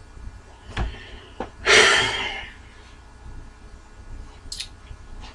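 A man's loud breath out, a huff of almost a second, about two seconds in, with a soft thump shortly before it.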